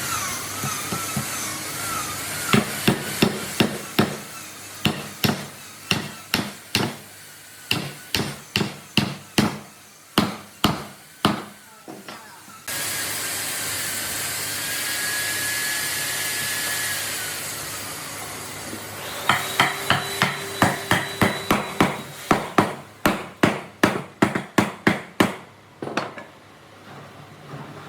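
Repeated hammer blows, about one to three a second, in two long runs. Between them a power tool runs steadily for about six seconds with a held whine that drops as it winds down.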